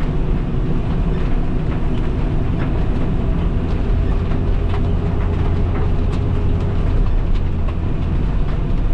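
Steady low engine and road drone heard from inside a vehicle cabin, with heavy rain pattering on the windshield as small scattered ticks.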